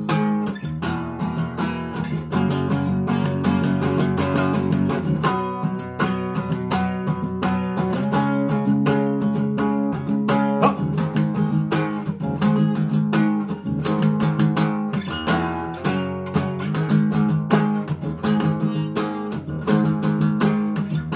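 Acoustic guitar strummed in a steady rhythm through a chord progression, with no singing: an instrumental break between choruses.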